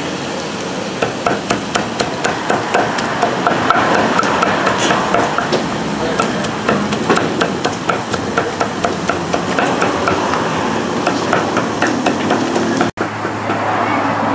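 Heavy knife chopping grilled meat on a wooden chopping block, a fast, steady run of knocks of blade on wood, about three or four a second, stopping near the end.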